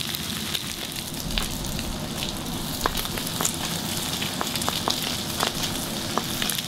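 Minced garlic and chopped chicken thigh sizzling in rendered chicken fat in a non-stick pan over high heat: a steady frying hiss with scattered small pops and crackles.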